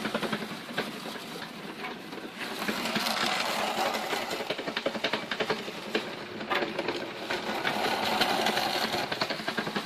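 Homebuilt sand muller running: a washing-machine motor drives a plow and a concrete roller through foundry sand with a steady, rapid rattle. A scraping swells and fades as the plow rubs the side of the barrel, which isn't perfectly round or isn't mounted exactly on center.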